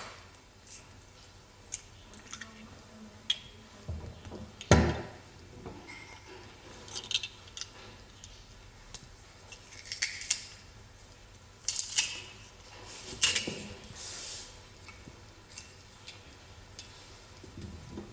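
Stainless steel garlic press handled and squeezed: scattered metal clicks and clinks, some in short clusters, with one loud thump about five seconds in.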